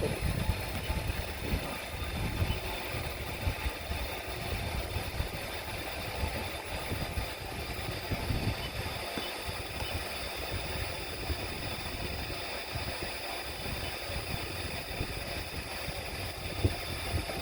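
Steady background machine noise with an irregular low rumble and a faint high whine, without any single distinct event.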